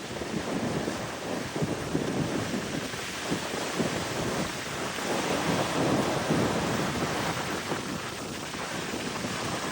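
Ocean surf washing up the beach, with wind buffeting the microphone in a low, gusty rumble; the wash swells about five to six seconds in.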